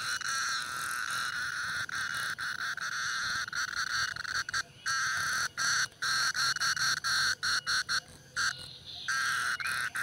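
Insect calling with a continuous high buzz, steady at first, then cutting out and restarting many times in quick succession through the second half.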